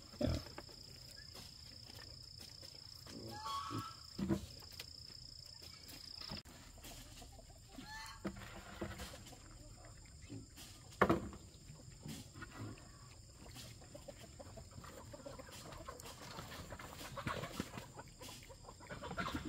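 Chickens clucking now and then, with two short calls about three and a half and eight seconds in. A few sharp knocks, and a steady high-pitched whine through the first six seconds.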